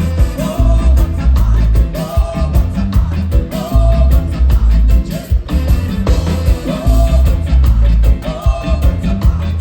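Live reggae band music with a sung vocal line over heavy bass and a steady beat.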